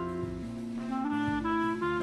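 Instrumental background music: a jazzy melody of held, horn-like notes over a moving bass line.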